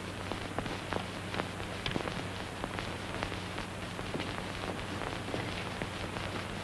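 Background noise of an old 1930s film soundtrack: steady hiss and hum, dotted with irregular crackles and pops. No dialogue or music.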